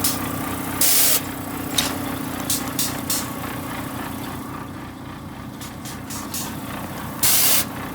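Ploughing machine's engine running steadily under work, with two short hissing bursts, one about a second in and one near the end, and scattered sharp ticks.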